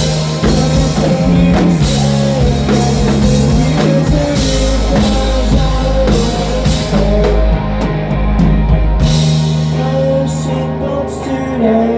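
Live rock band playing loud, with drums, guitar and vocals. About three-quarters of the way through, the bass drops out, leaving held guitar notes and a few sharp hits as the song winds down.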